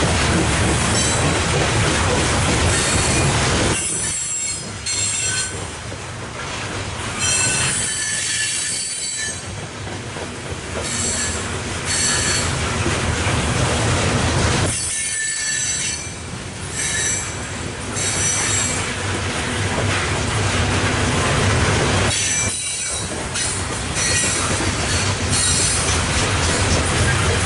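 Loaded coal train's hopper cars rolling past: a steady rumble of steel wheels on rail, with high-pitched wheel squeal that comes and goes every few seconds.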